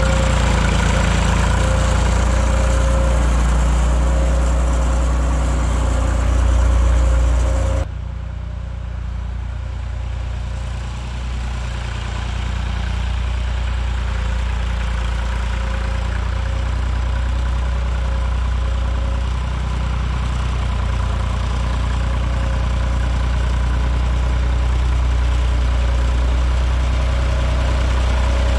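Small International farm tractor's engine running at a steady speed as it drags a back blade through soft dirt. About eight seconds in the sound drops abruptly to a quieter, more distant hum, then slowly grows louder again as the tractor comes back closer.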